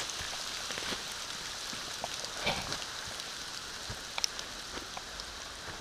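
Hail pattering on the forest leaves and leaf litter: a steady hiss with scattered sharper ticks of single stones striking.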